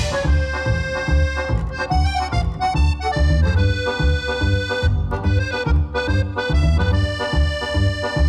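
Background music led by an accordion, with a steady beat in the bass.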